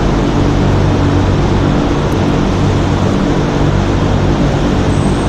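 A steady, loud machine drone: a low motor hum under a rushing, airy noise, unchanging throughout.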